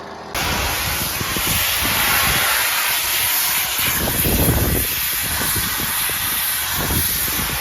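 Pressure washer spraying: a loud, steady hiss of the high-pressure water jet that cuts in suddenly a moment after the start, over the washer's engine.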